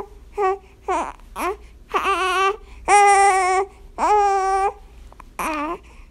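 Infant crying in bouts: several short cries, then three longer wails with quick breaths between, and another short cry near the end.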